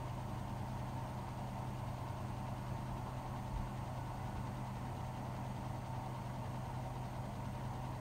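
Hotpoint WMFUG 942 front-loading washing machine in an intermediate spin, its drum turning at a constant speed with a steady motor hum and whirr.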